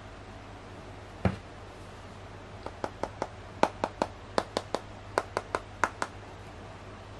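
Fingertips tapping on the metal back of a Redmi Pad SE tablet: about fifteen sharp, irregular taps over three and a half seconds, preceded about a second in by a single louder knock as the tablet is handled.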